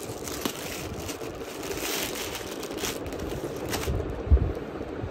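Rustling and crinkling as the pieces of an unstitched suit and their packaging are handled and unfolded, with a soft thump about four seconds in.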